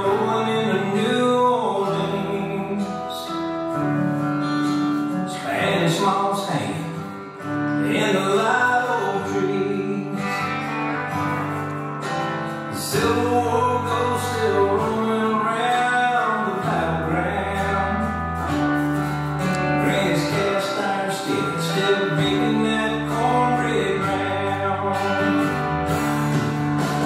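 Recorded song with singing over guitar, a slow nightclub-rhythm line-dance track.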